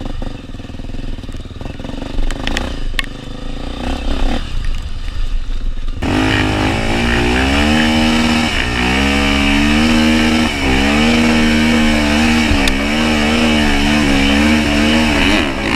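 Honda XR 250 Tornado's single-cylinder four-stroke engine revving, its pitch rising and falling with the throttle. It becomes suddenly much louder about six seconds in.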